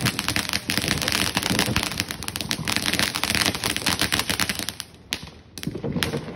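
Ground fountain firework spraying sparks with a fast, dense crackle that dies away about five seconds in, leaving a few scattered pops.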